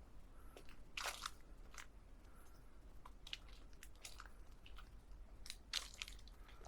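Footsteps crunching on a forest mountain path: several irregular crunches, the loudest about a second in and again near the end, over a faint low rumble.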